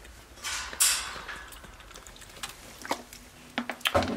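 Capuchin monkey drinking from a plastic water bottle: a short rustling, sucking noise about a second in, then scattered light plastic clicks and ticks near the end as the bottle and its cap are handled.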